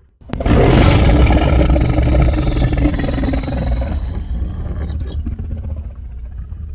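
Designed monster roar sound effect for a fictional creature: a harsh, rumbling roar that starts abruptly about a third of a second in, is loudest near the start and slowly fades, leaving a deep rumble after about five seconds.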